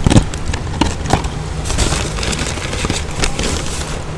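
Crunching and crackling of crispy onion rings being eaten and their paper carton being handled, many short crackles over a steady low rumble.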